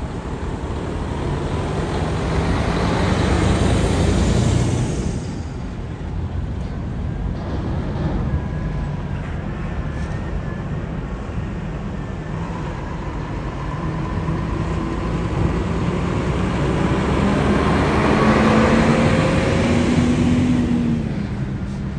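Heavy trucks' diesel engines running as they drive off the ferry's ramp and past close by. The sound swells twice, once early and again near the end, with the engine pitch rising and then dropping on the second pass.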